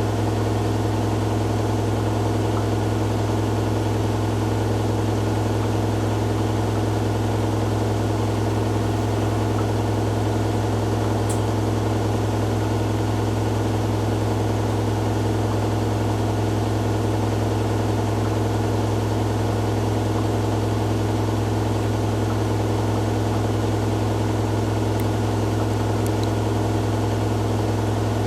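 Hoover Dynamic Next DXA610IW3 washing machine in its high-speed spin, on a Spin cycle set to 1600 rpm. It gives a steady, even hum with an unchanging whirring noise over it.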